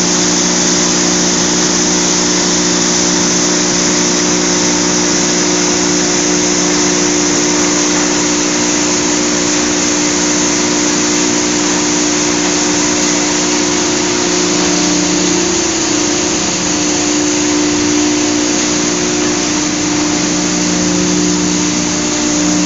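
Industrial machinery of a rotary drum dryer line running steadily. It makes a loud, even hum: a few steady low tones over a constant hiss, and the tones waver briefly around the middle and again near the end.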